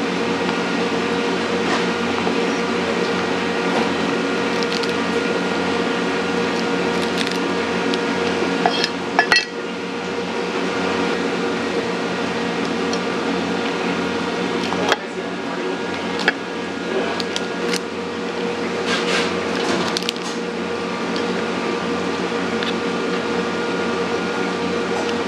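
Steady mechanical hum of kitchen machinery, with scattered sharp knocks and cracks of a cleaver and gloved hands working a cooked mud crab's shell on a wooden chopping block; the loudest knocks come about a third of the way in and again past the middle.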